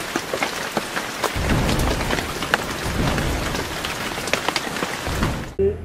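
Rain falling in a dense crackling hiss, with a low rumble of thunder joining about a second in; the sound cuts off suddenly near the end.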